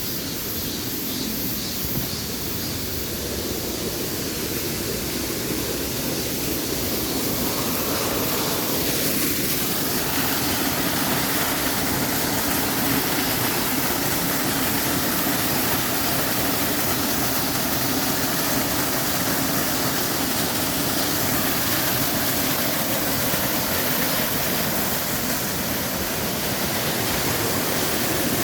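Mountain valley stream: water rushing steadily, growing slightly louder over the first ten seconds or so.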